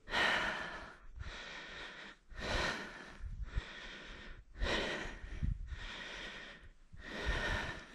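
A person breathing hard close to the microphone: a loud breath about every two seconds with a softer one between, the effort of hauling a fish in hand over hand on a tip-up line.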